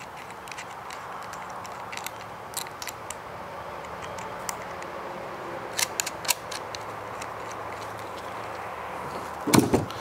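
Small metallic clicks and taps as a crimped ring terminal and its hardware are fitted onto a battery's positive terminal post by hand, over steady room hiss. A quick cluster of clicks comes about six seconds in, and one louder, duller knock comes just before the end.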